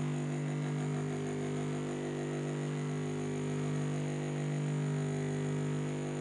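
Double-ended bench grinder with a wire wheel and a buffing wheel running unloaded: a steady electric motor hum with no grinding or brushing against metal.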